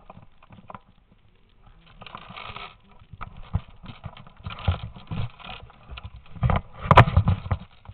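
Irregular knocks and rustles of someone moving about while holding the camera: footsteps and handling noise, louder over the last two seconds, with one sharp click about seven seconds in.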